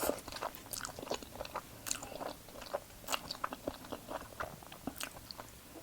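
Close-miked mouth sounds of a person chewing pasta: irregular wet smacks and soft clicks, a few every second.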